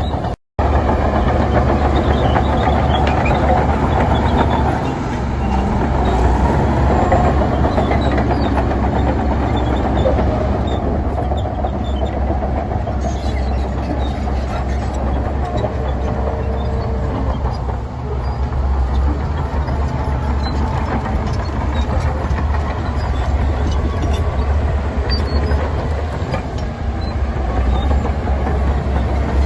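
Heavy diesel earthmoving machinery running steadily, a loud low rumble with a continuous rattling clatter. The sound cuts out for an instant about half a second in.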